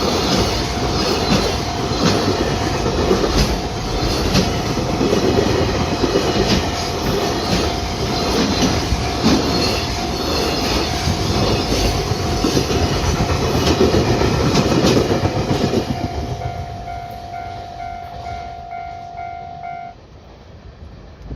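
A train passing over a railway level crossing, its wheels clattering over the rail joints, with the crossing's warning signal ringing. The train noise fades away about 16 seconds in, leaving the repeating warning tones, which stop about 20 seconds in.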